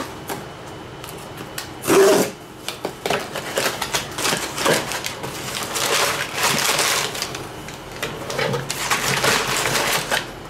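Cardboard shipping box being opened by hand, with crumpled brown packing paper crinkling and rustling in irregular bursts as it is pulled out. The loudest cardboard noise comes about two seconds in.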